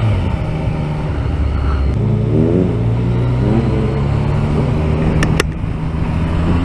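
Yamaha MT motorcycle engine running under way, pulling at low revs at first, then accelerating in a few rising steps through the gears from about two seconds in, with another rise near the end. A brief sharp click a little after five seconds.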